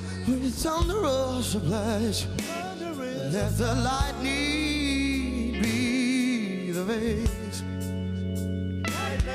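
Male vocalist singing a slow ballad live with a band, his voice bending between notes and holding two long notes with vibrato in the middle, over a steady bass and band accompaniment.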